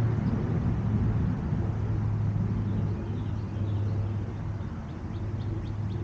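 A steady low rumble with a hum, easing off a little and then rising again near the end, with faint short bird chirps in the second half.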